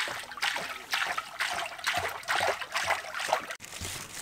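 Cooking oil pouring from a plastic jerrycan into a large wok, splashing and gurgling in uneven spurts. It stops abruptly near the end.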